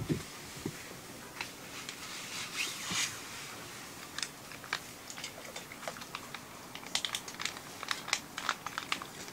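Plastic sachet of hot pot soup base crinkling as it is handled and squeezed out over a hot wok, with a dense run of sharp crackles in the last couple of seconds, over a faint steady hiss.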